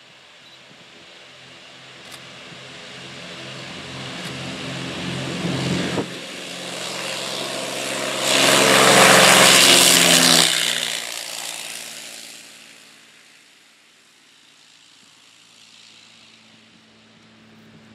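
Twin-engine piston propeller plane on its takeoff roll at full power. The engine drone builds as it nears, is loudest as it passes about eight seconds in, then drops in pitch and fades as it heads down the runway.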